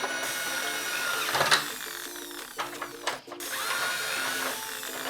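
Battat take-apart toy's electric drill whirring in two runs of about a second and a half each, the second starting with a short rising spin-up, as it drives the toy truck's plastic bolts. Background music plays underneath.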